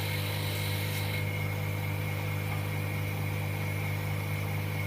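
Vacuum pump of an LCD refurbishing machine running with a steady low hum, holding the screen and film down by suction. A higher hiss fades about a second in.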